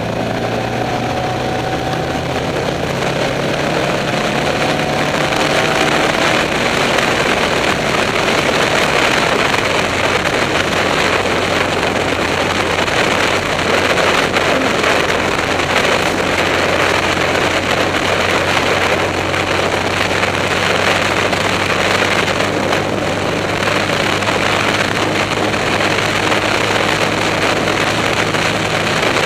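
Off-road race car's engine running under way, its note climbing over the first few seconds, with a steady loud rush of wind noise on the microphone.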